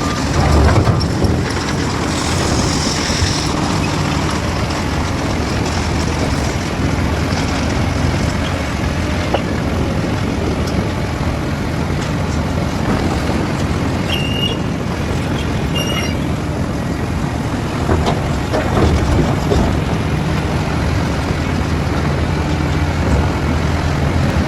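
Engine of a heavy construction machine running steadily under work. Two short high beeps come about a second and a half apart, a little past halfway through.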